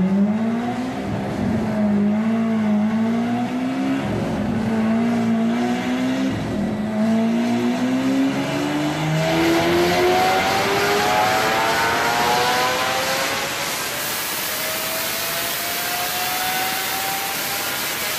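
Lamborghini engine accelerating hard, its pitch climbing steadily with brief dips at gear changes about four and seven seconds in. In the second half a rushing hiss grows over the rising engine note.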